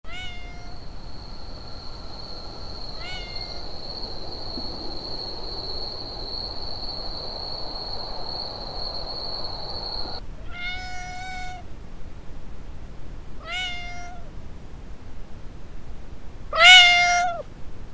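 Siamese cats meowing: five separate meows, each under about a second long, the last one the loudest near the end. A steady high-pitched whine runs under the first half and cuts off suddenly.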